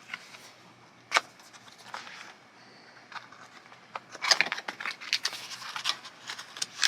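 Handling noise from unpacking a camera arm: plastic bag crinkling and small hard parts clicking and rattling. One sharp click about a second in, then a busier run of clicks and rustles from about four seconds in.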